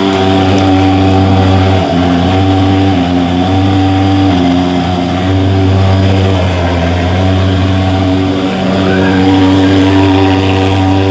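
Portable thermal fogging machine running with a loud, steady buzz, its pitch wavering slightly a few times.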